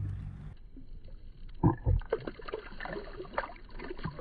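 Muffled water splashing and gurgling as a walleye is let go into the river, with two sharp knocks about a second and a half in, followed by irregular sloshing.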